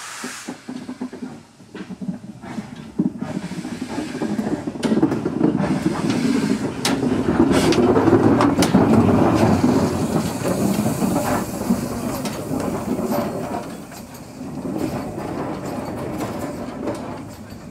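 Small steam saddle-tank locomotive running along the line: a rumble of wheels with clicks over the rail joints and some hiss of steam. It swells to its loudest about halfway through, then eases off.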